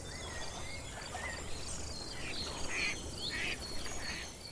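Nature ambience: insects chirping steadily while birds call, with a run of short harsh calls repeating about every half second in the second half.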